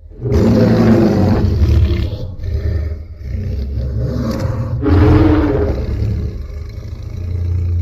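Homemade recreation of a Godzilla roar: a long, deep monster roar in two swells. It starts suddenly, eases off about two seconds in, rises to a second peak about five seconds in, then trails off.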